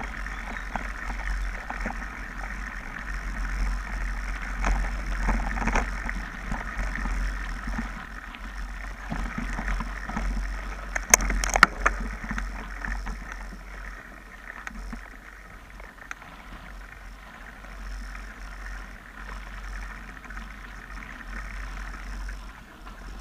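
Mountain bike rolling down a dirt trail: tyre noise on loose dirt with the bike rattling and a low rumble of wind on the microphone. There are a few sharp clacks about halfway through.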